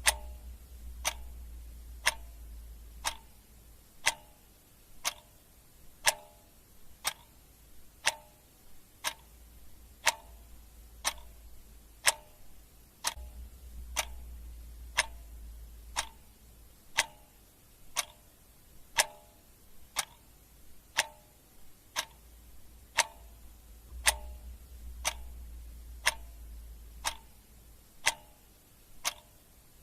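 Clock ticking steadily, one tick a second.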